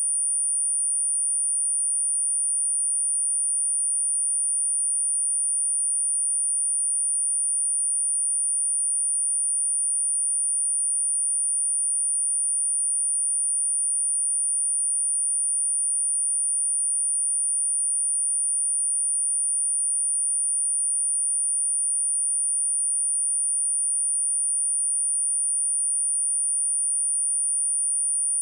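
A pure 9377 Hz sine-wave test tone: one steady high-pitched whistle at constant level. It is played to test a speaker and to clear water and dust from it.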